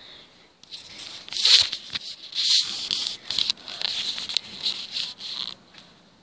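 Footsteps crunching and scraping over broken glass and debris on a tiled floor, about one a second.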